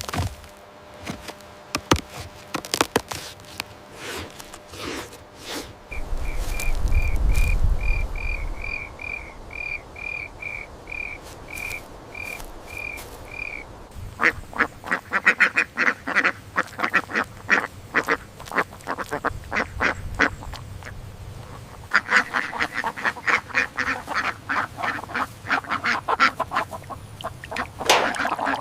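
Birds calling: first scattered clicks, then about six seconds in a high call repeated evenly about twice a second, and from about fourteen seconds in long runs of rapid, crowded calls.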